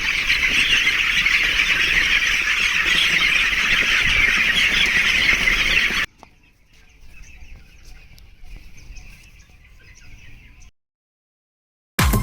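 A large flock of young broiler chickens chirping all at once in a dense, continuous chatter. About six seconds in it cuts abruptly to a much quieter stretch of the same chirping, which stops short just before the end.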